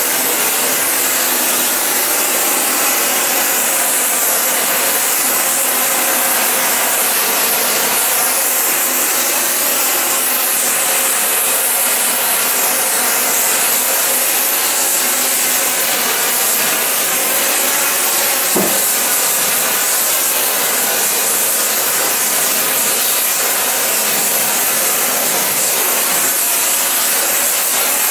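Gas welding torch flame hissing steadily as it heats a steel door skin to release the body adhesive bonded behind it. A single sharp click sounds about two-thirds of the way through.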